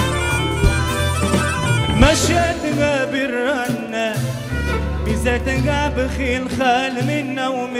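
Live Tunisian folk-pop band music: a wavering, ornamented melody line over bass notes and hand-drum percussion, in a Middle Eastern folk style.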